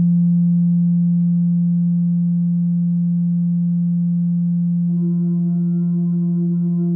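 A low, steady ringing tone with faint higher overtones, sustained and fading only slowly. About five seconds in, a second, higher tone joins it.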